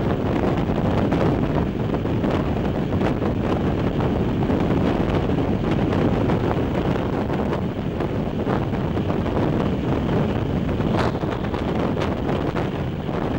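Steady running noise of a regional train at speed: wheels rumbling on the rails, with wind rushing over the microphone.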